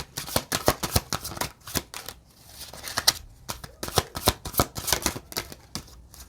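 Oracle card deck being shuffled by hand: a quick run of card slaps and flicks, with a brief pause a little over two seconds in.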